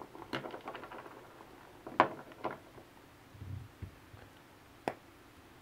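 Hollow chocolate Easter egg shell being broken apart by hand: a few scattered sharp cracks and snaps, the clearest about halfway in, a soft knock of pieces on the tabletop, and the plastic toy capsule inside being handled.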